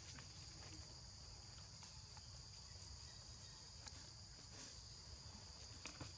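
Faint, steady high-pitched insect drone, with a low background rumble and a few soft ticks.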